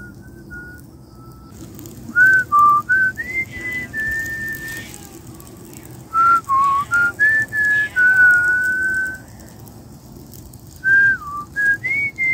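A person whistling a tune: clear held notes that step up and down in pitch, in three phrases with short pauses between them.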